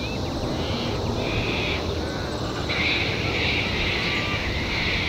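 Distant steady rumble of a Boeing 737-800's jet engines at takeoff power as it rolls down the runway. Small birds chirp over it, thickest from about three seconds in.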